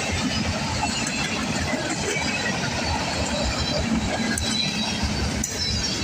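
Freight train cars rolling past: a steady rumble and rattle of steel wheels on the rails.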